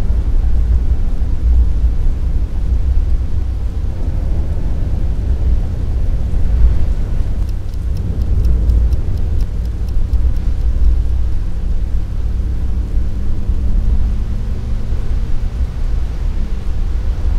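Steady low rumble of road and engine noise heard from inside a moving car's cabin on a wet road, with a run of light, quick, evenly spaced ticks about eight seconds in.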